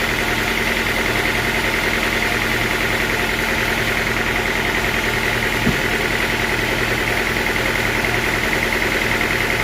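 A sawmill's engine running steadily at constant speed, with a steady whine above it and a single short knock about halfway through.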